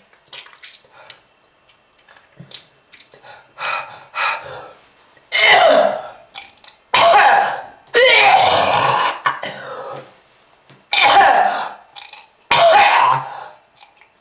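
A person's harsh hacking coughs and throat clearing, a smoker's cough: small throat noises at first, then about six loud coughing fits with short pauses between them.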